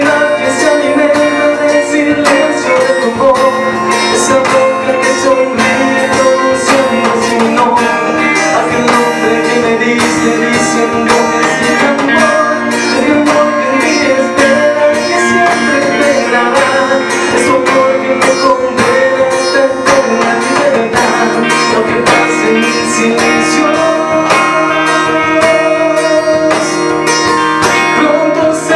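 Acoustic guitar music in an instrumental passage of a slow song, with a sustained melody line that bends gently above the guitar.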